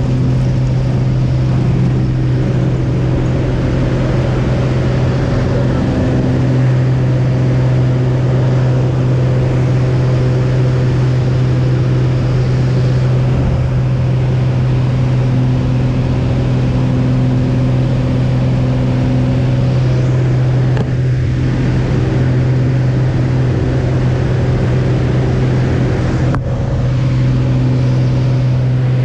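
Single-engine light aircraft's piston engine and propeller heard from inside the cabin, a loud steady drone during takeoff and climb, with two brief drops in the latter part.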